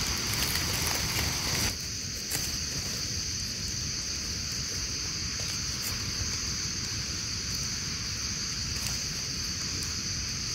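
Steady high-pitched drone of insects, over a low rumbling noise with a few faint clicks.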